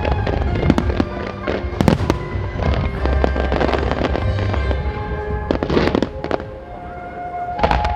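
Display fireworks going off in rapid succession: many sharp bangs of launches and shell bursts, densest around two seconds in and again near six seconds, with music playing underneath.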